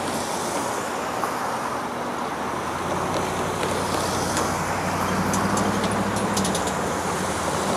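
Steady rolling noise of a passing vehicle, with a few light clicks between about five and six and a half seconds in.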